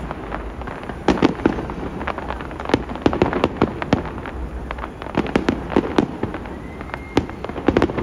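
Space Needle New Year's fireworks display going off in a continuous barrage of irregular bangs and crackles, several a second, with clusters of louder bangs about a second in, around three seconds in, and between five and six seconds.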